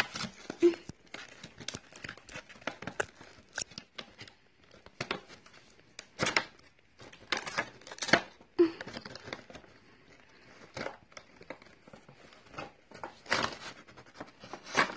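Cardboard toy box and its plastic packaging being torn and pulled open by hand: irregular tearing and crinkling, with louder rips about six, eight and thirteen seconds in.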